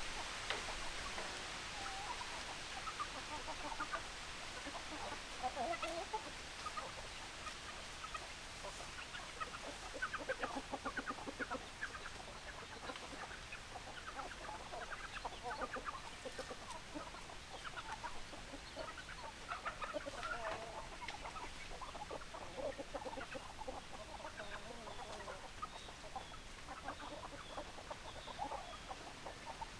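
Hens clucking: many short, overlapping clucks from several chickens throughout.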